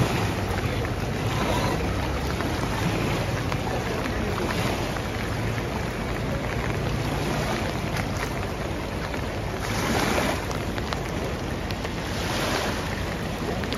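Steady rushing of a swollen river in flood, with wind buffeting the microphone; it swells briefly louder a couple of times, around ten seconds in and again near the end.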